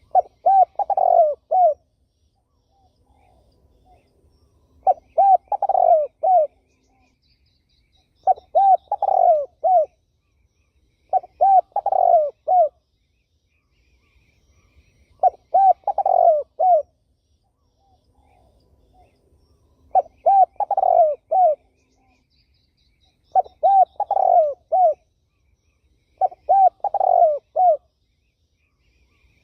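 Turtle dove cooing: a repeated phrase of several low, arched coos, given about eight times with pauses of a second or two between phrases.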